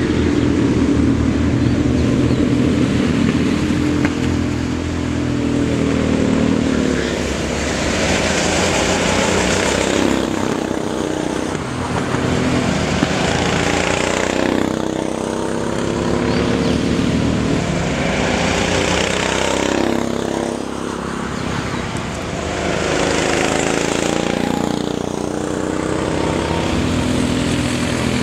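Racing go-kart engines running hard as karts pass close by one after another, the engine note sweeping up and down with each pass, a fresh pass roughly every five seconds.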